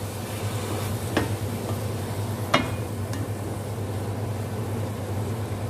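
Spatula stirring fresh molokhia leaves in a metal cooking pot, with two sharp knocks against the pot, about a second and about two and a half seconds in, over a steady low hum.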